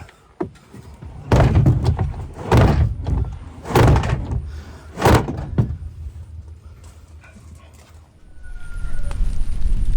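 Four heavy thuds, a little over a second apart, then a low rumble that builds near the end.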